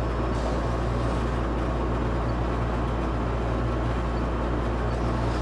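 Kossel delta 3D printer running a motion test: a steady low hum from its stepper motors and fans as the effector travels across the bed.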